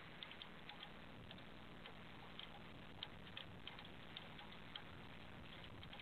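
Near silence on an air traffic control radio feed between transmissions: a faint hiss with small irregular crackling clicks.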